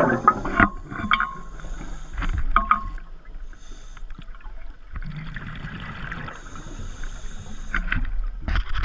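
Scuba diver breathing through a regulator underwater. A rush of exhaled bubbles fades at the start, then a quieter stretch with a few clicks and short squeaks, and another rush of exhaled bubbles from about five seconds in.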